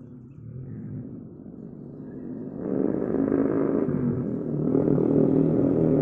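A motor vehicle engine running steadily and drawing nearer, growing clearly louder about two and a half seconds in.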